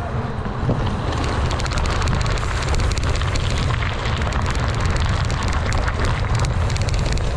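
Mountain bike riding over a dirt trail, recorded from the handlebar: tyres crunching over gravel and leaf litter with a dense patter of rapid small clicks and rattles, over a steady low rumble of wind and trail bumps.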